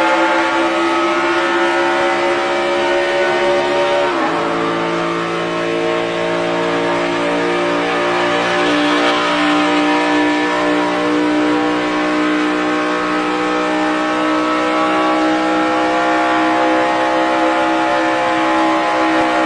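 Race car engine sound effect, running hard at high revs. About four seconds in the pitch drops suddenly, like a gear change, then holds nearly steady with a slight climb.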